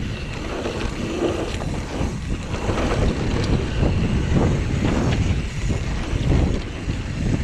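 Wind rushing over the microphone as an enduro mountain bike rides fast down a rough trail, with a steady rumble and frequent knocks and rattles from the tyres and bike over the rocky ground.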